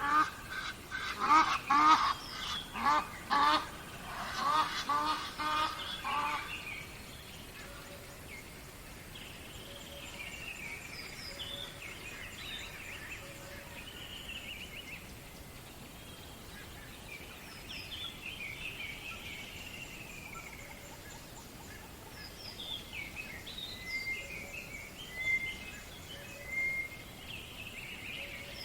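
Birds calling at dawn: a loud run of repeated calls, several a second, for the first six seconds or so, then quieter higher-pitched chirps and whistled phrases over a faint steady background hiss.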